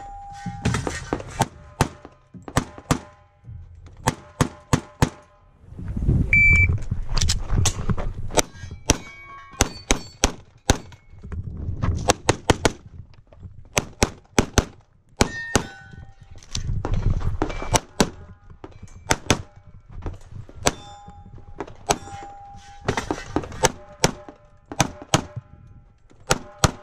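Semi-automatic pistol fired in rapid strings, dozens of sharp shots in quick succession, broken by short gaps with low rumbling movement noise as the shooter moves between positions.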